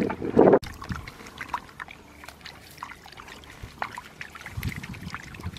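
Water sloshing and splashing in a metal bucket worked through a muddy puddle, cutting off abruptly under a second in. After that, only faint small splashes and clicks in shallow mud.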